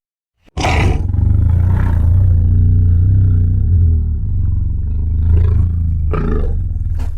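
Godzilla roar sound effect: one long monster roar with a heavy low rumble, starting abruptly about half a second in and surging again near the end.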